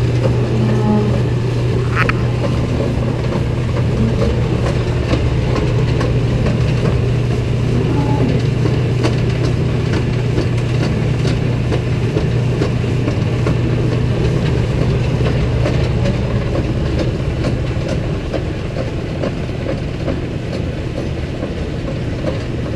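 A farm machine's engine running at a steady speed, with continuous rattling and clattering. The sound eases slightly toward the end.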